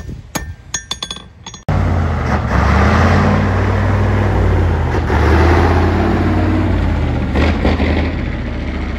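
A few hammer blows ringing on a steel anvil as a blacksmith forges iron, then, after a sudden cut, a heavy vintage semi truck's engine running loudly as it drives past pulling a lowboy trailer.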